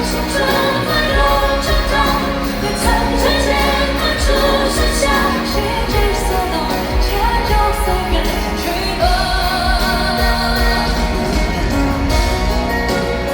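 Male pop singer singing a Mandarin ballad live over a full band, recorded from the concert audience.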